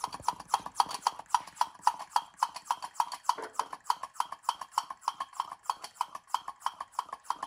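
Hand-operated vacuum pump squeezed over and over, each stroke giving a short click, at a steady rhythm of about four a second. It is pulling a vacuum on a capped aluminum radiator core to suck freshly applied epoxy into the leaks. The owner finds the pump is not working very well.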